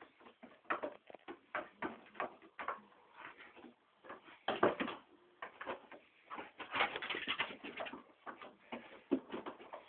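A sheep and a dog tussling at a door: an uneven run of taps, knocks and scrapes from hooves and claws. Two louder, busier scuffles come just under halfway through and again about two-thirds of the way in.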